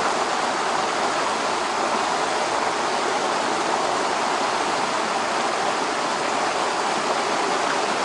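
Running water of a fast-flowing stream: a steady, unbroken rush.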